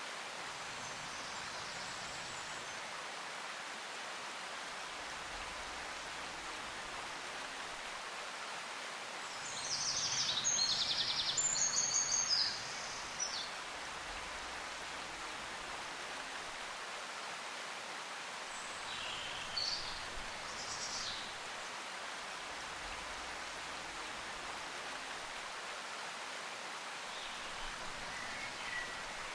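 Steady background hiss, with a burst of rapid high-pitched chirping about ten seconds in and a shorter, fainter one around twenty seconds in.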